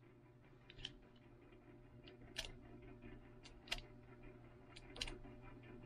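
Faint, sparse clicks and taps from a metal pen and a marker being handled, about eight small ticks at irregular intervals.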